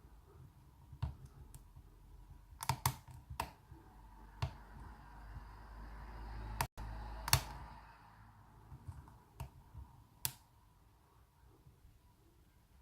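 Lock pick clicking and tapping inside an aluminium American Lock Company 1205 padlock as it is picked: about ten scattered sharp clicks, with a low handling rumble in the middle.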